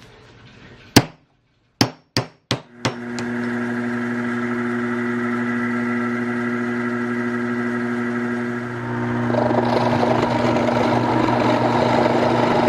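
A few sharp taps, as of a hammer tapping a part home in a press fit. A milling machine's motor then starts and runs with a steady hum, turning noisier and louder about nine seconds in.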